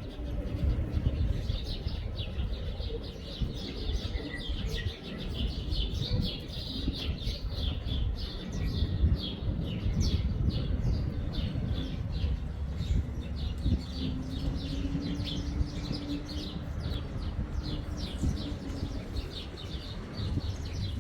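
Small birds chirping rapidly and continuously, over a steady low rumble.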